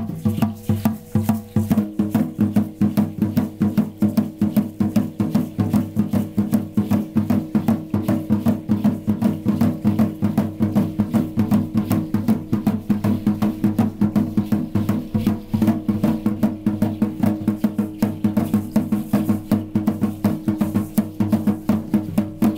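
Fast, steady drumming on tall upright huehuetl drums for Aztec-style dance, strokes following each other evenly at a brisk beat. The drumming cuts off suddenly at the end.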